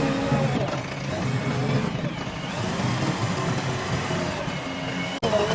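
Diesel engine of a JCB 3DX backhoe loader running steadily, with a brief dropout near the end.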